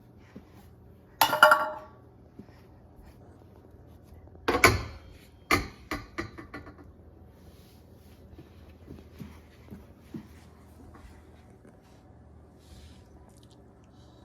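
Metal kitchen pots and lids being handled: a ringing clang about a second in, then a clatter about four seconds in followed by a run of smaller knocks, and a few light taps later.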